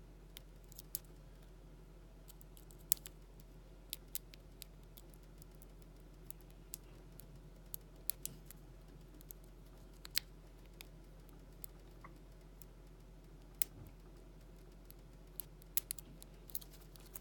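Light metallic clicks and ticks, scattered and irregular, from a lock pick and tension wrench working the wafers inside an XLNT wafer padlock, over a faint steady low hum.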